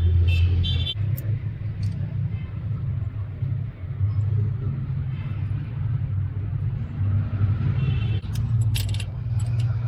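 Steady low rumble or hum with a few sharp clicks near the end.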